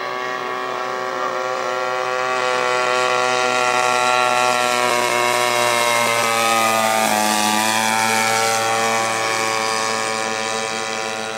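Engine and propeller of a 50-inch radio-controlled scale Cessna model flying past: a steady engine note that grows louder as it approaches, then drops in pitch about seven seconds in as it passes and heads away.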